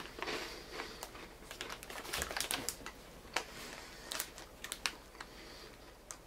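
Chewing crunchy corn-and-peanut puffs (jumbo Erdnussflips): an irregular run of sharp, crisp crunches.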